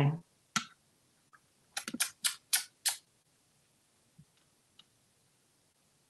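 Sharp clicks: a single one about half a second in, then a quick run of about six over a little more than a second, about two seconds in.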